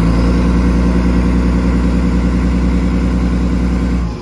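Boat engine running at a steady speed, then cutting off sharply about four seconds in.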